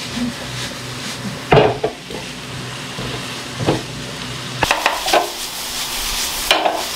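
Corned beef hash with onions, potatoes and bell peppers sizzling steadily in a nonstick frying pan over a gas flame, while a spatula stirs it, with a few sharp knocks of the spatula against the pan.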